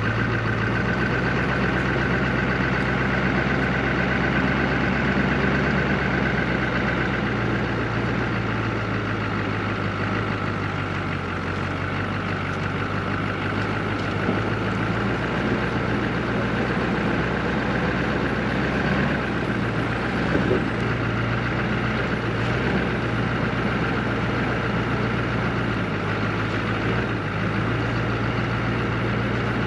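Stihl 661 chainsaw running steadily at a constant pitch, ripping a log in an Alaska chainsaw mill.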